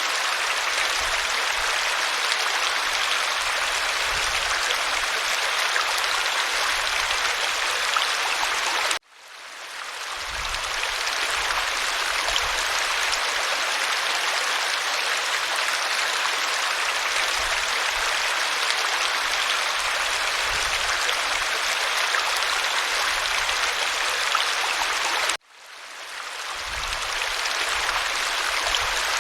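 Waterfall rushing steadily, a dense hiss of falling water over a low rumble. It cuts out suddenly twice, about nine seconds in and again near the end, and swells back to full within a second or two each time.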